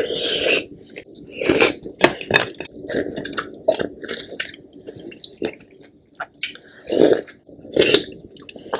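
Close-miked eating of a spicy seafood boil: wet chewing, biting and slurping of crab, corn and sauce, in irregular bursts.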